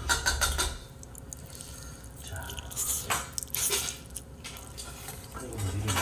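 Kitchen handling noises: a utensil clinking against a cooking pot as sauce goes in, then crinkling of plastic food packets on the counter.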